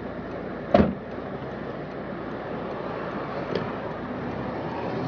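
Steady street and traffic noise with one loud thump about a second in and a faint click a few seconds later.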